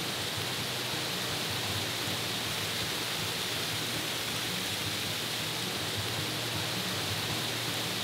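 Steady rush of creek water cascading over shallow rock ledges and a small waterfall.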